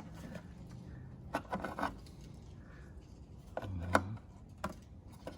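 A few sharp clicks and knocks of taillight parts being handled and fitted, the loudest about four seconds in.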